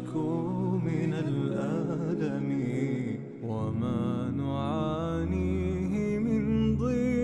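Background music: a solo voice chanting an Arabic nasheed in long, ornamented notes, with a low steady drone coming in underneath about three seconds in.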